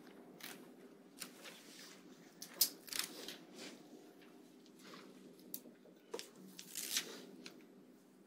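Classroom rustle of paper being handled, with scattered scratchy noises and small clicks coming at irregular moments, loudest about two and a half seconds in and near the end, over a steady low hum.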